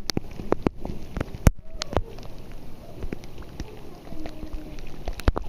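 Rain pelting a swimming pool's surface, with pool water splashing and slapping close to the microphone in sharp, irregular hits.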